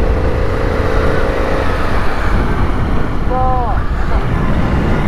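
Motorcycle engine running under way, heard from the rider's helmet with heavy wind rumble. Its steady drone fades after about a second and a half, and a short rise and fall in engine pitch comes about three seconds in.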